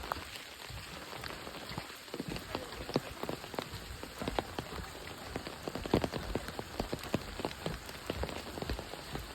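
Rain falling in a birch forest, with many irregular, sharp drops tapping close by over a steady patter.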